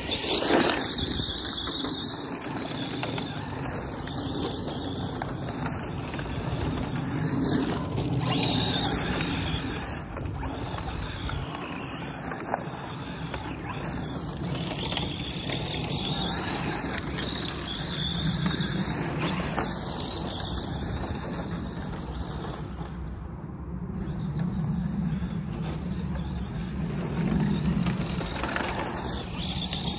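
ARRMA Mojave 4S RC desert truck's brushless electric motor whining, its pitch rising and falling again and again with the throttle as the truck slides across loose dirt.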